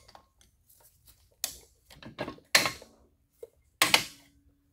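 Metal clanks and clicks from hand tools and the Ferrari F355's rear brake rotor as the rotor is worked loose and pulled off the hub. There are a few sharp separate knocks; the last, near the end, leaves a brief faint ringing tone.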